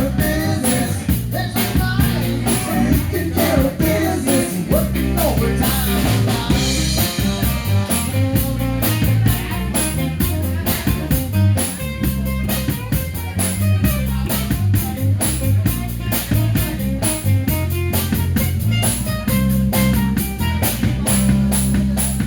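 Rock band playing live, with guitar, bass and drum kit over a steady beat.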